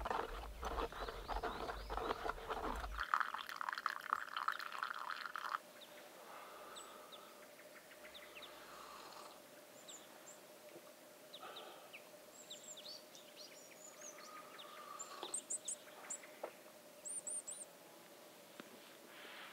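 A spoon scraping and stirring in a collapsible silicone cup for the first five seconds or so, with low rumbling noise at the start. Then small birds chirping with short, high calls, a quick run of them near the end.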